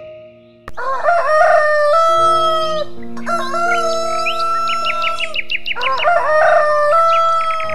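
Black rooster crowing three times in a row, each crow rising into a long held note.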